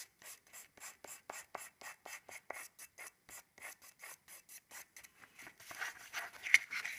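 Pastel stick rubbing across paper in quick, short feathering strokes, about six a second. The strokes get louder and denser near the end, with one sharper stroke.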